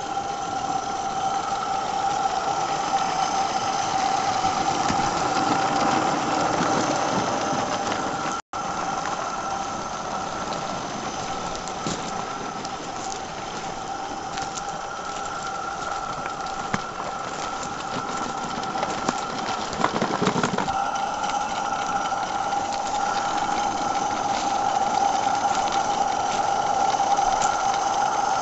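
Merlin Monarch 16mm-scale live-steam locomotive running under steam with a train of wagons, a steady hissing, humming mechanical sound with a high steady tone. The sound cuts out for an instant about a third of the way in.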